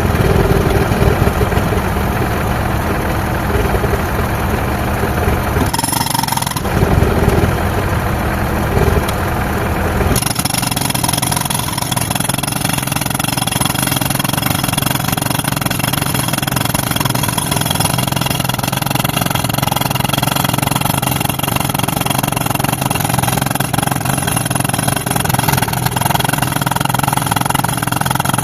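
Pneumatic concrete breaker hammering, driven by a tractor-run air compressor whose engine runs steadily throughout. About ten seconds in the sound changes abruptly: the heavy pounding drops away, leaving the engine and compressor running.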